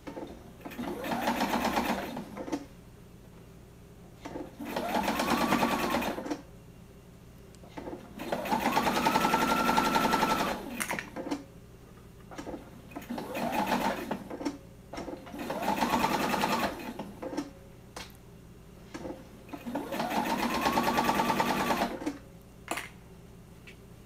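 Electric sewing machine stitching in six short runs of one to three seconds each, the motor whine rising as each run starts and falling as it stops, with small clicks in the pauses between runs.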